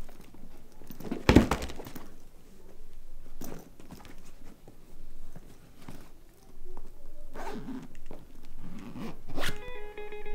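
Zipper of a fabric travel bag being pulled and the bag handled, in several separate scraping strokes, the loudest about a second and a half in.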